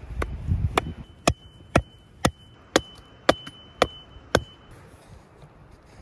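Hatchet chopping at a wooden branch: nine sharp strikes, about two a second, stopping a little over four seconds in.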